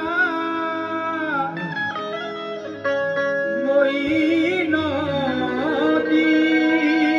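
Qawwali music: the lead singer sings long, gliding held notes over the steady drone of a harmonium, with a keyboard adding a plucked-string sound.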